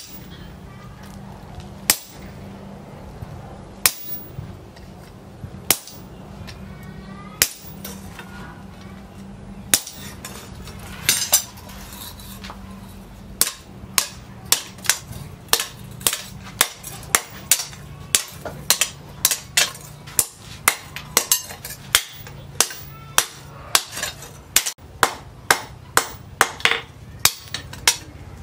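Hammer blows on a red-hot leaf-spring steel blade on a steel post anvil, each a sharp metallic strike. The blows fall about two seconds apart at first, then from about halfway they settle into a quicker, even run of about three blows every two seconds.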